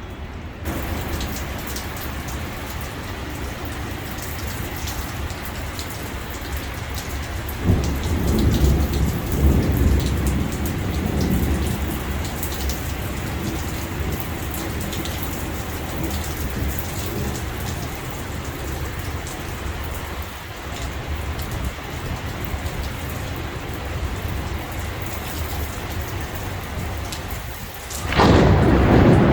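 Steady rain during a thunderstorm, with a rumble of thunder that breaks in about a quarter of the way through and lasts a few seconds, then a sudden, much louder thunderclap near the end.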